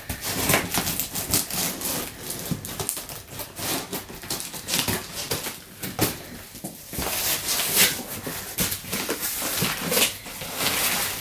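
Scissors cutting and scraping through packing tape on a cardboard box, with repeated short tearing and scraping noises and a brief pause about halfway through. Near the end, cardboard flaps and plastic-wrapped packaging rustle as the box is opened.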